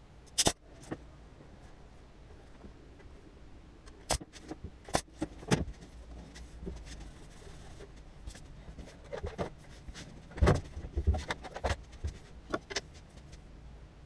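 Scattered sharp clicks, taps and knocks of tools and wooden trim being handled on a workbench, with a cluster of heavier knocks about ten and a half seconds in.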